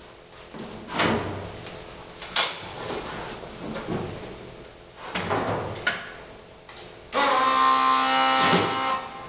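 Knocks, creaks and rattles as someone climbs into a truck's bare cab, then near the end a loud, steady hiss with a buzzing tone in it that lasts about two seconds and cuts off.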